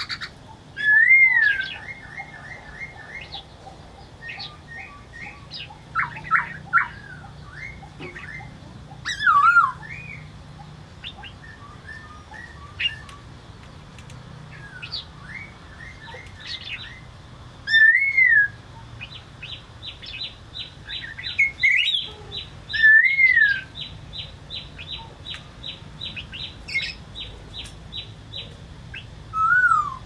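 Black-throated laughingthrush singing a varied song: loud, arching whistled phrases mixed with short repeated notes, and a long run of quick high notes, about three a second, through much of the second half.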